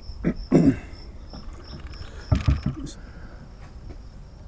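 Insects chirping steadily in a high, even pulse of about three chirps a second, with a few louder low knocks and thumps about half a second and two and a half seconds in.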